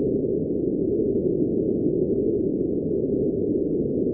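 A steady, low, muffled rushing drone with no distinct tones, beats or breaks, of the kind presented as the 'sound' of a Uranian moon.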